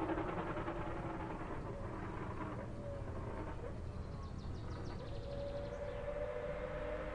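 Apollo Intensa Emozione's 6.3-litre naturally aspirated V12 heard from the trackside. Rapid exhaust crackles at the start fade away, and from about five seconds in a steady engine note builds again.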